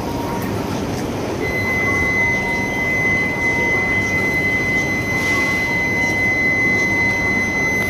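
Shinkansen bullet train at a station platform: a steady rumble of the train, with a single steady high-pitched whine that comes in about a second and a half in and holds.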